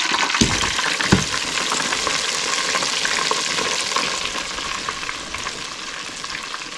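Hot oil in a fryer sizzling and crackling around a freshly added breaded chicken fried steak. There are two dull knocks in the first second or so, and the sizzle eases off somewhat after about four seconds.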